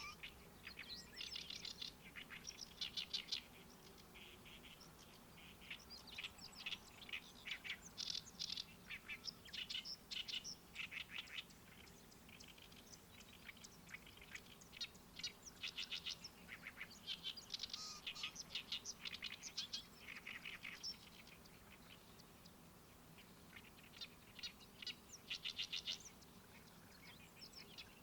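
Songbirds singing in phrases of rapid, fast-repeated chattering notes, one to three seconds long with short pauses between, over a faint low steady hum.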